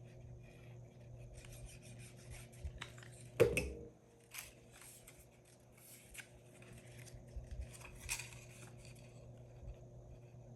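Paper strips rustling and rubbing as they are handled and pressed together while being glued, with one sharp knock about three and a half seconds in. A faint steady hum runs underneath.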